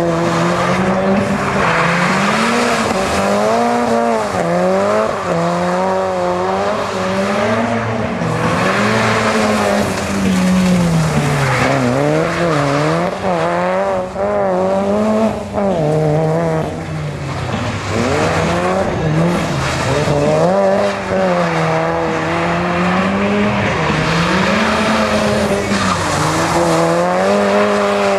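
Mitsubishi Lancer Evolution rally car's turbocharged four-cylinder engine revving up and down over and over as the car slides through the turns, with its tyres skidding on the wet surface.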